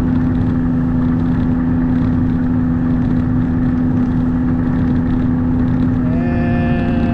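Off-road vehicle's engine running at a steady pitch while travelling along the trail. About six seconds in, a higher steady tone briefly joins it.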